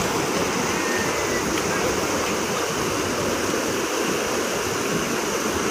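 Floodwater pouring over the broken edge of a road and cascading down the bank in a steady rush.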